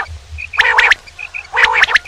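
Male quail calling twice, about a second apart: each call is a quick, loud run of a few clipped notes, with faint short notes in between.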